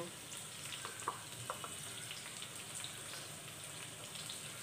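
Okra frying in oil in a pan, a steady soft sizzle. A few faint taps and scrapes of a steel spoon mixing dry spice powder in a bowl come through about one to two seconds in.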